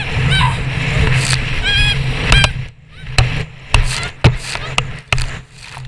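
Jet ski running with a steady low engine hum while it bounces over waves, water slapping the hull and spraying the camera in a run of sharp, loud hits from about two seconds in. A few brief high squeals near the start.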